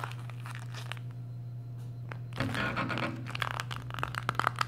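Soft rubber RC crawler tire with its foam insert being squeezed by hand and set down, with faint crackles and creaks, then a busier run of rustling and small clicks from about two and a half seconds in as the crumpled tire slowly springs back open. The slow recovery is a sign of its very soft, pliable compound.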